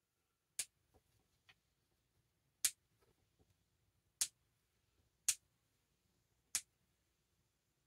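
Five sharp clicks, one to two seconds apart, with a few faint ticks between them, from hands working at a black cap.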